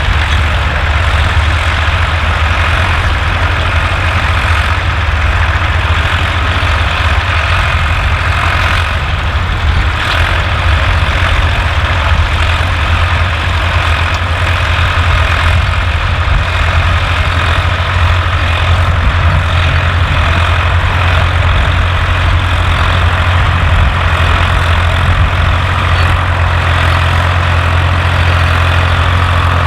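A large engine idling steadily, with a deep, even low hum.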